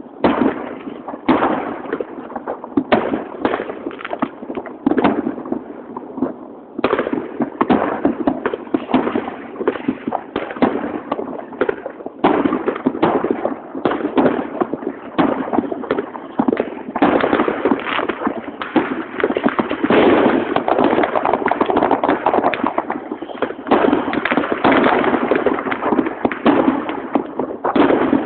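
Fireworks going off: many sharp bangs and crackles in quick succession, scattered at first and thickening into an almost unbroken crackle in the second half.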